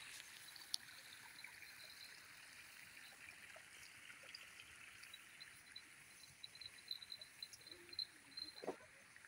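Near silence: faint paddy-field ambience, a soft steady hiss with faint, quick, high chirps repeating mostly in the second half, and a couple of small ticks and rustles.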